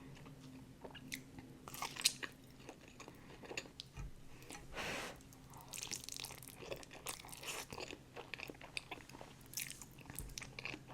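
Close-miked eating sounds: a person chewing and biting food, with many small irregular clicks of mouth and teeth, and a brief longer hiss-like sound about five seconds in.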